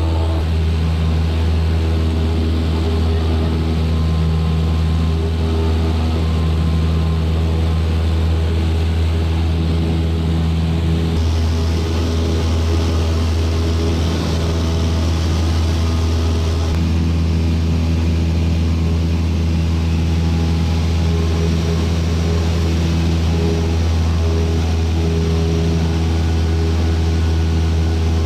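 Cessna single-engine light aircraft's piston engine and propeller droning steadily in flight, heard from inside the cabin: a strong low hum with steady tones above it and a rushing hiss of airflow.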